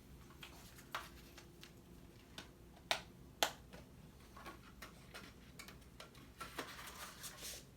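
Faint clicks and taps from handling a Blu-ray steelbook case, with two sharper clicks about three seconds in and a short rustle near the end.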